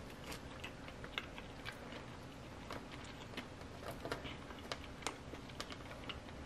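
Faint chewing of fried food, with scattered small clicks as fingers pick through fries in a plastic takeout tray.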